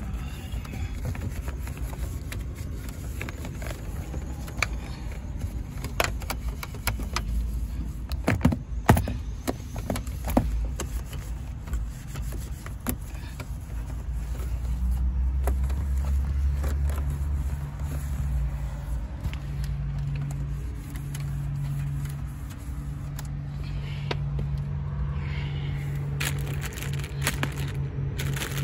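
Wiping and handling around a car's center console and gear shifter: light knocks and clicks over a steady low rumble, which from about halfway through carries a low droning hum.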